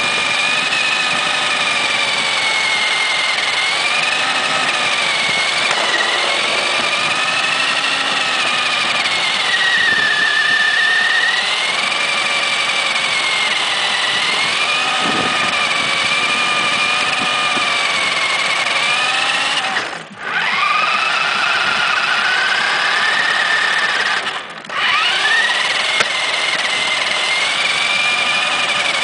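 Radio-controlled model race car's motor running at speed, heard close up from the car itself, its high pitch rising and falling with the throttle. Twice, about two-thirds of the way through and again some four seconds later, it cuts back sharply for a moment and then climbs again in pitch.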